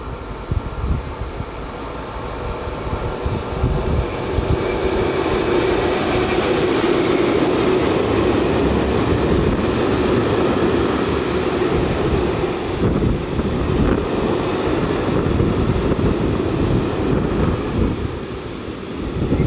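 A train passing through the station. The rail noise grows louder over the first few seconds, then holds steady with a low hum running through it, and eases slightly near the end.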